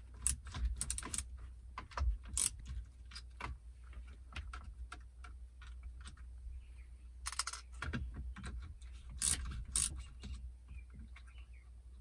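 Irregular small clicks and clinks of a deep-socket driver working the 10 mm nuts that hold the vacuum hoses to a Ford EATC climate control unit, coming in a few short clusters.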